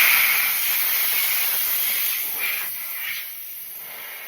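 Compressed air from a Kobalt 26-gallon Quiet Tech air compressor rushing out in a super loud hiss as a line is unhooked, starting suddenly and slowly fading as the pressure drops.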